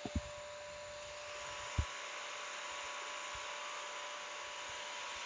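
Bissell CrossWave Pet Pro wet-dry vacuum running its self-clean cycle in its tray: a steady motor hum and hiss, with a few low knocks in the first two seconds.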